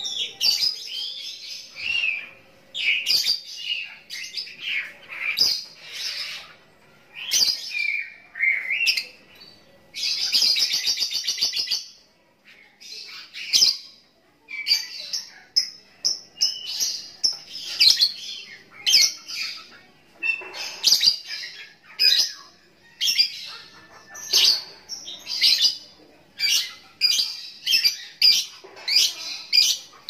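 A young lovebird chattering: short bursts of high, squeaky chirps come one after another, with a rapid buzzy trill lasting about two seconds about a third of the way through and a brief pause just after it.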